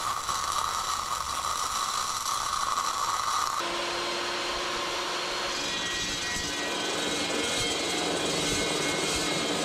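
Wire-feed welder arc crackling and hissing steadily on steel. About three and a half seconds in, it gives way to a dry-cut metal chop saw's motor humming, and the toothed blade then starts cutting into steel.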